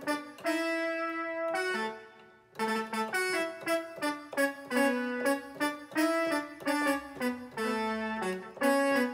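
A Roland XP-10 multitimbral synthesizer being played on its keyboard. One long held note fades out about two seconds in, then a quick run of short notes follows.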